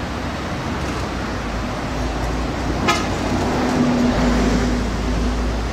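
Street traffic: a motor vehicle passing close by, with a low engine rumble that swells in the second half and a steady low hum, plus one short click about three seconds in.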